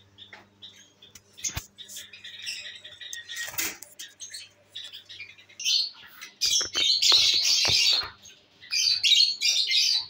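Caged lovebirds chattering in short, harsh chirps and squawks, sparse at first and building into loud, dense chatter in the second half. A sharp click sounds about one and a half seconds in.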